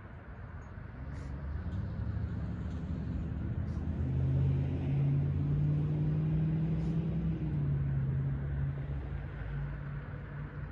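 A motor vehicle's engine going by: a low hum that builds to its loudest about four to seven seconds in and then eases off, with a few faint ticks over it.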